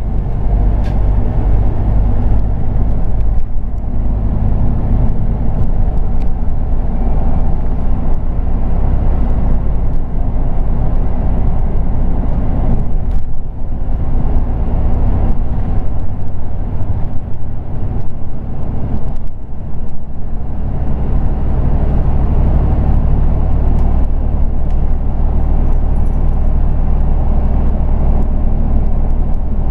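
Scania OmniLink articulated bus heard from inside the cabin while cruising at road speed: a steady low engine drone mixed with tyre and road noise. The level dips briefly twice, around the middle.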